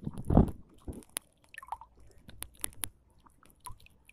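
Irregular crackling and sharp clicks of rod-and-reel handling noise, with a low thump about half a second in, as a hooked tilapia is brought in on a spinning rod.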